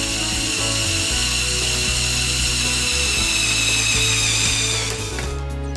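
Small electric motor and plastic gear train of a Mould King 13107 motorised toy crane whining, its pitch sinking slowly until it stops about five seconds in, over background music.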